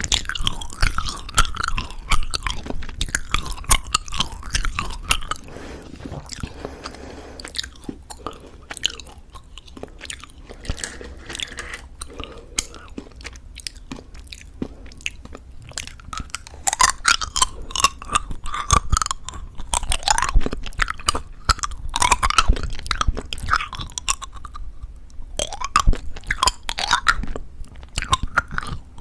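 Close-miked chewing of plum Happy Jelly, chewy jelly candies with a crisp sugar-coated shell: crunching of the coating mixed with wet chewing. The chewing goes softer for several seconds in the middle, then crunchier and louder again.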